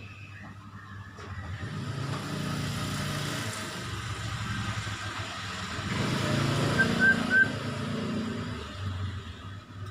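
A motor vehicle passing by, its engine and road noise swelling over a few seconds and then fading away. Two short bird chirps sound about seven seconds in.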